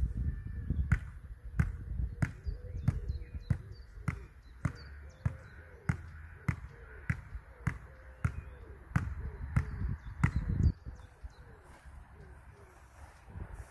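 A volleyball is struck up into the air again and again with the hands, a sharp slap about every 0.6 seconds, some sixteen in a row, stopping about ten seconds in. Bursts of low rumble come near the start and again around ten seconds in.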